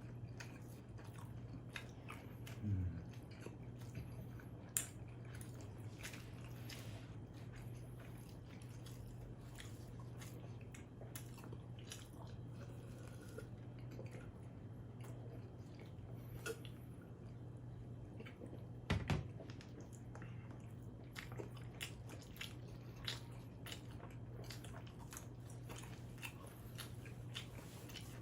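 Close-miked chewing and biting of combination pizza: scattered sharp wet mouth clicks and smacks, over a steady low hum. A louder knock comes about two-thirds of the way through.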